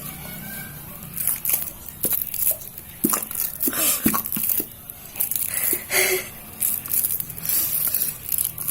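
Irregular crinkling and squishing handling noises, a string of short bursts, from slime-making materials being worked by hand.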